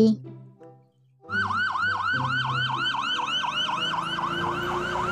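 Police car siren yelping, a fast rising-and-falling electronic wail repeating about three to four times a second. It starts about a second in.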